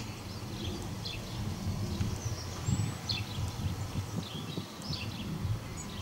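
Small birds giving short, scattered chirps over a low, uneven rumble of wind.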